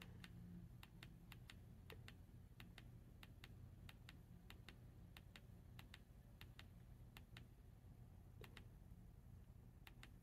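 Push-buttons on a Quansheng UV-K5 handheld radio clicking as the menu is stepped through item by item: a run of faint, quick clicks, a few a second, with short pauses.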